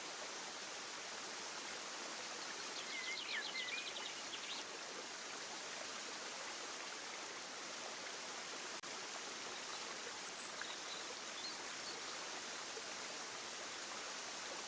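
Steady rush of running water in a natural outdoor ambience. Faint bird calls sit over it: a quick trill of chirps about three seconds in and a few short chirps around ten seconds.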